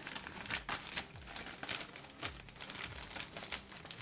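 Clear plastic bag crinkling and rustling in irregular bursts as hands handle it and slide a rulebook out.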